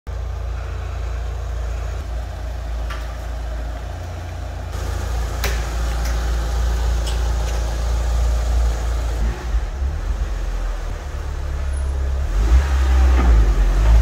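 Mitsubishi Lancer Evo 6 Tommi Mäkinen Edition's turbocharged 2.0-litre four-cylinder engine running with a steady low rumble, getting louder about twelve seconds in as the car comes up to the workshop lift.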